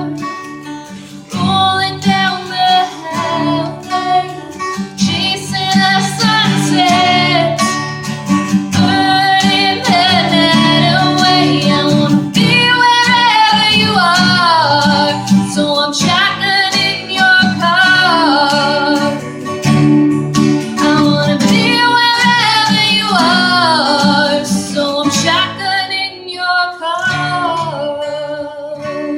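Country music: a woman singing long, wavering held notes over strummed acoustic guitar, closing out the song.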